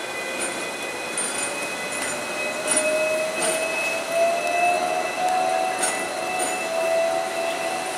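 Hong Kong double-decker electric tram running past on its street rails: a steady whine that slowly rises in pitch over the running noise, with a few sharp clicks scattered through.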